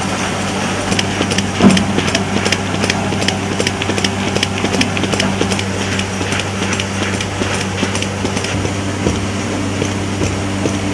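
Hand-held spring stamps clacking down on stacked paper pages in quick, repeated strokes as the pages are stamped one after another, with one louder knock a couple of seconds in. A steady low hum runs underneath.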